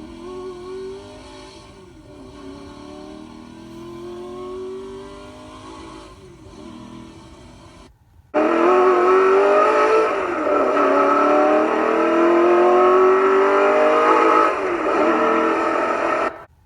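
Recorded sports-car engine revving, played through the Tesla Model 3's Boombox external speaker: several rising revs. The clip stops about eight seconds in and plays again much louder, cutting off sharply near the end.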